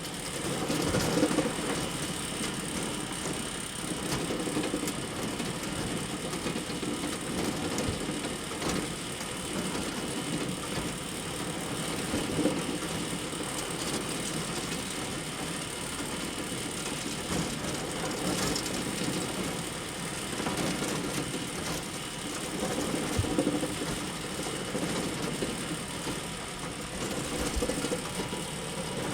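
Hay bale elevator running: a steady mechanical rattle and clatter of its chain-and-slat conveyor, swelling louder now and then.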